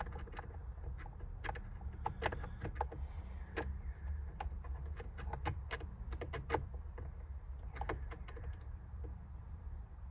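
Scattered clicks, taps and rattles of a screwdriver, screws and a car's plastic interior trim being handled, over a steady low rumble.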